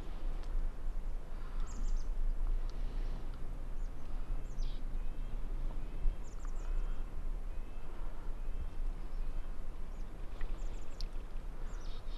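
Small birds chirping and singing over a steady outdoor background, with a faint low hum for a few seconds from about three seconds in: the spit and drum of a strutting wild turkey gobbler.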